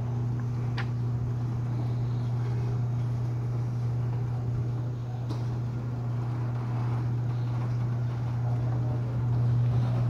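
Garage door opener motor running steadily as it raises a steel roll-up door, with a constant low hum. Two faint ticks come along the way, and the sound grows a little louder near the end.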